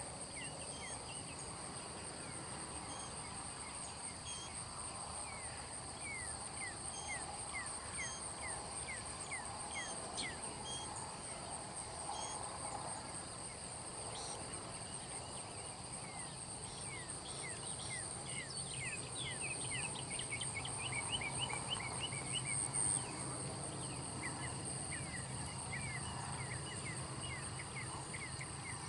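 Insects singing: a steady high-pitched drone with runs of short, quick, falling chirps repeating throughout.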